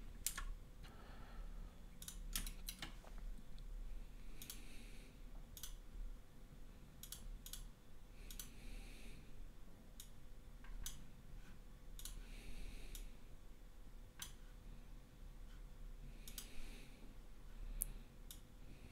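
Faint, scattered clicks of a computer mouse and keyboard, coming irregularly, with a few brief soft hisses in between.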